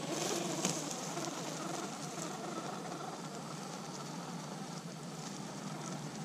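Axial RR10 Bomber electric RC rock racer driving across leaf-strewn grass: a steady noisy rush of motor, drivetrain and tyres, with a few brief ticks about half a second in.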